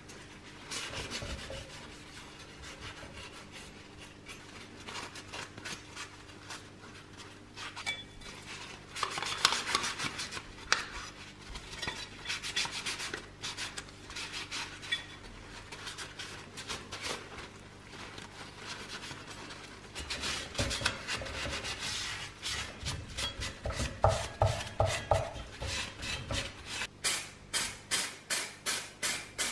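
A cloth rubs and wipes over bare sheet-steel parts of a Tonka T6 toy bulldozer, with light knocks as the metal parts are handled. Near the end a quick run of regular short pulses begins.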